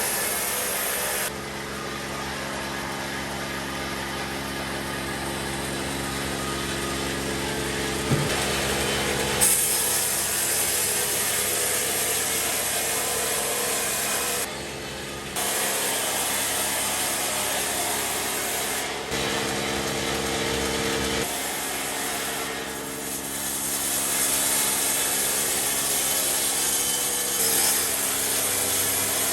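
Powered sawmill saw running and cutting through wood: a steady motor hum under the rough rasp of the blade in the timber. The sound shifts abruptly several times.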